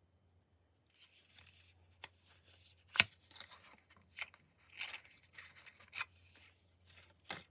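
Packaging and merchandise being handled: bursts of rustling and crinkling with sharp clicks or taps, the loudest about three seconds in, over a faint steady hum.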